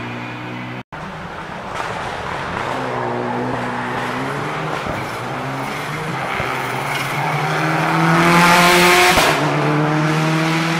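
Rally car's engine revving hard, its pitch climbing and dropping with each gear change as it approaches. It passes close about eight seconds in with a loud rush of engine and tyre noise, then keeps accelerating.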